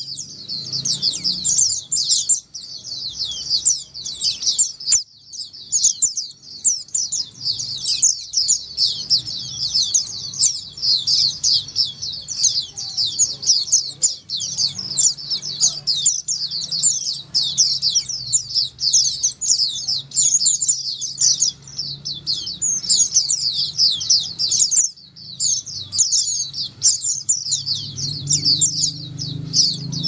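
A colony of white-eyes (pleci) chirping and twittering all at once: a dense, unbroken chorus of quick, high, downward-slurred notes.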